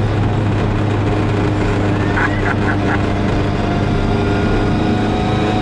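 Classic Mini Cooper S rally car cruising at a steady speed in top gear, heard from inside the cabin: the engine runs evenly with the whine of its straight-cut gearbox.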